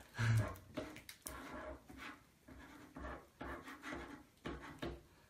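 Two pens scratching on paper sheets on a wooden table in short, irregular strokes, with a low thump about a third of a second in.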